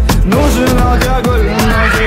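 Background music with a steady beat, heavy bass and a melody line.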